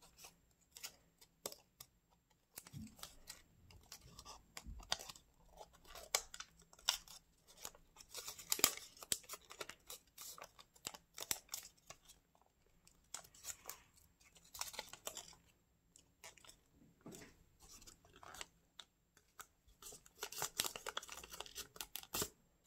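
Origami paper being folded and pressed into creases by hand: irregular soft crinkles and crackles with short pauses.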